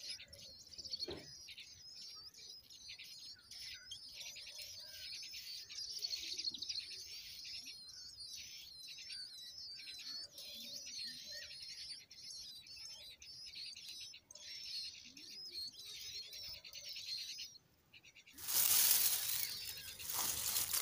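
Nestlings begging at the nest with a dense chorus of rapid, high-pitched squeaking calls while a parent bird feeds them. The calls break off and a loud rustling rush of noise takes over near the end.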